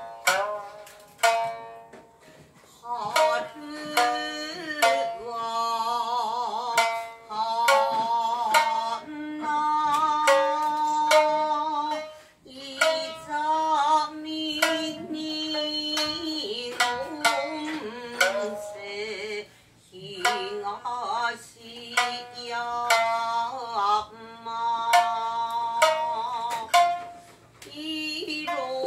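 Shamisen plucked in sharp strokes beneath a woman's singing, a slow melody of long held notes with a wavering pitch.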